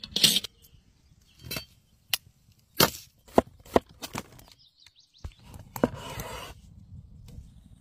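Heavy cleaver chopping on a wooden cutting board: a run of sharp, separate strikes at uneven spacing, with a short scraping stretch about six seconds in.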